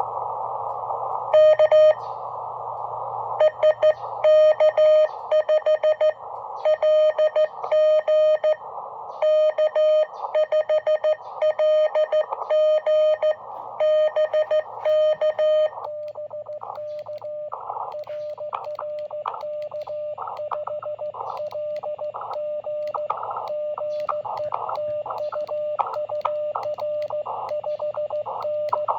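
Morse code (CW) from a QRP ham radio transceiver: a steady tone of about 600 Hz keyed on and off in dots and dashes over band hiss. For the first half the keying is loud and crisp. After about 16 seconds it goes on at a lower level among the static.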